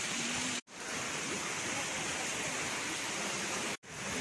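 Steady rushing hiss, like falling water, broken twice by abrupt drops to silence, about half a second in and near the end, where the recording is cut.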